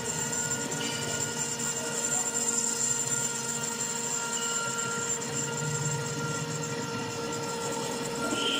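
CNC router spindle milling a carbon steel plate: a steady high whine of several held tones over the rough, even noise of the cutter working the steel.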